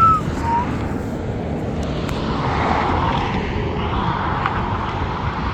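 Road traffic running steadily, with a vehicle going by about halfway through. Right at the start come two short high chirps, the second lower than the first.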